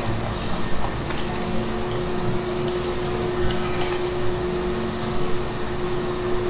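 Large industrial bowl mixer running steadily as it churns cod fish paste, a continuous machine drone with a steady tone and a few faint clicks on top.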